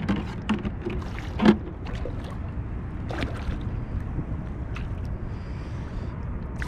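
Wind rumbling on the microphone aboard a kayak on open water, with a few short sharp knocks; the loudest comes about a second and a half in.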